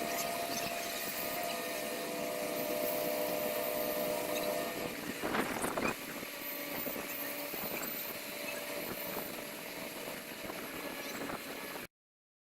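Heavy machinery engine running steadily, with a louder noisy burst about halfway through; the sound cuts off abruptly near the end.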